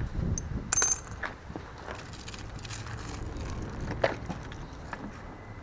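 Hand-handling noises under the hood: a few sharp clicks and knocks, one about a second in with a brief high ring, along with light rustling over a steady low hum.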